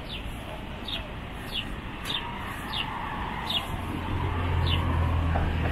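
Outdoor street ambience: a bird chirping over and over in short, falling notes. A vehicle engine's low drone grows louder in the second half.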